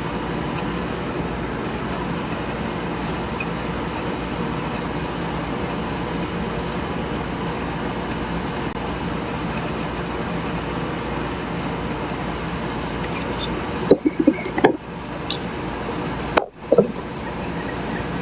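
Steady background room noise, a constant hum and hiss. Near the end come a few brief louder sounds with short dropouts between them.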